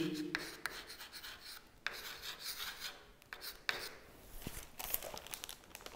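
Chalk scratching on a chalkboard in short strokes, with small taps, as words are written.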